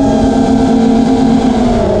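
FPV racing quadcopter's brushless motors whining in flight, with wind rushing over the onboard microphone. The pitch holds fairly steady and sags a little near the end as the throttle eases.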